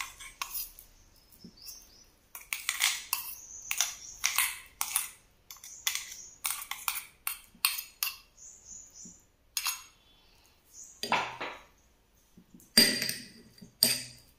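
A steel spoon scraping and clinking inside a stainless steel mixer-grinder jar as thick ground paste is scooped out, then against a glass bowl near the end. The clinks and scrapes come irregularly, with a short pause a little past the middle.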